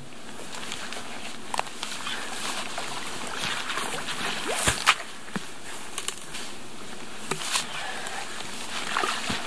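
Water sloshing and splashing in muddy lake shallows as a waterlogged log is dragged out by hand, with several sharp knocks, the loudest a pair about halfway through.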